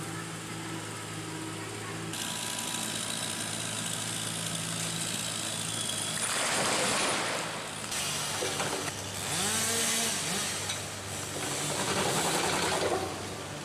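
Machinery engine running steadily, with two loud bursts of saw-like cutting noise about halfway through and near the end, and some brief gliding whines between them.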